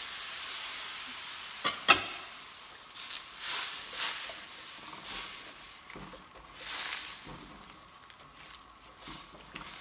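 Vegetable curry sizzling in a wok as puréed coconut goes in, the sizzle dying away. Two sharp knocks about two seconds in, then stirring swishes and scrapes in the pan.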